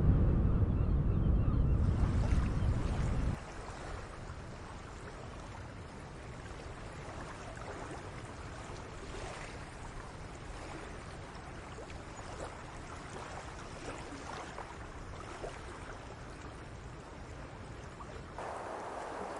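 Wind rumbling low and loud on the microphone of a bicycle riding a gravel path, cutting off abruptly about three seconds in. After that comes a soft, even wash of water at a river mouth, with light wind.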